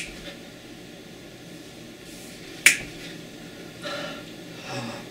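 A single sharp finger snap about two and a half seconds in, with two much fainter short sounds near the end.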